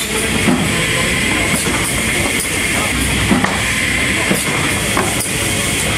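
Delrieu sawing-line machinery running steadily and loudly, with a lasting high whine-like hiss over a low rumble. Several short wooden knocks stand out as cut timber blocks are slid and set down on the steel table.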